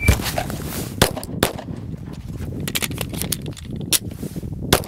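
Pistol shots in an emergency-reload drill: two quick shots about a second in, a pause while the emptied magazine is dropped and a fresh one seated, then two more sharp shots near the end.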